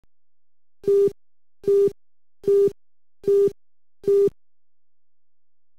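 Countdown-leader beeps: five short electronic beeps of one steady mid-pitched tone, a little under a second apart, one for each number of the countdown.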